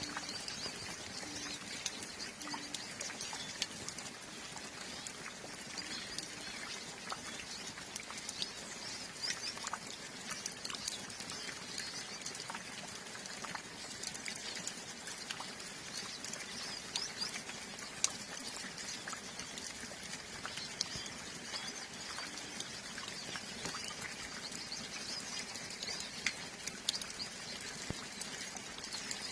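Calm steady rain with water dripping, including a few louder single drips, while a flock of hooded siskins twitter in many short, high chirps.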